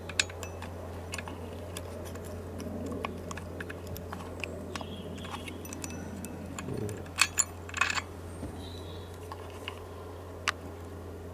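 Small metal chainsaw parts clicking and clinking as they are handled and fitted onto the clutch side of the saw, with two louder clinks about seven and eight seconds in, over a steady low hum.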